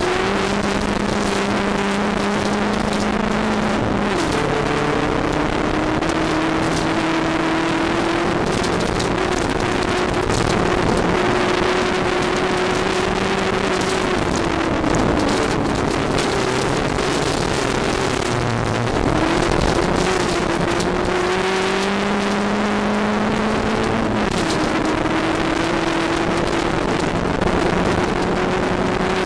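Interior sound of a VW Golf GTI MKII rally car at speed on a gravel stage. Its four-cylinder engine runs hard under load, its pitch dropping and climbing again with gear changes and throttle several times. Tyre and gravel noise fills the cabin throughout.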